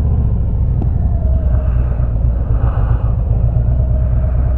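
Harley-Davidson V-twin motorcycle engine running steadily under way, a constant low rumble with a fainter mid-pitched hum above it.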